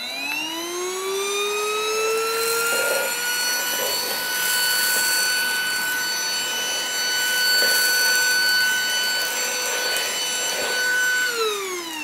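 Greenote GCH01 cordless handheld vacuum's motor switching on and spinning up to a steady high whine, then winding down near the end as it is switched off. Now and then a hissy rattle comes over it as grains of rice are sucked up off a hard floor through the wide floor tool.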